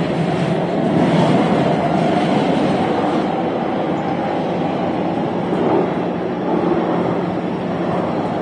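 Taipei Metro train running, heard from inside the carriage: a steady rumble of wheels and motors under a constant low hum.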